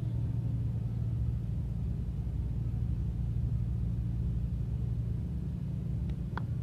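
Steady low outdoor rumble of city background noise, with a brief sharp click near the end.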